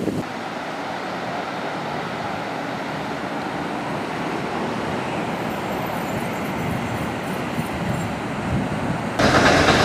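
Steady road-traffic noise of cars moving on nearby city streets. Near the end it cuts suddenly to louder traffic.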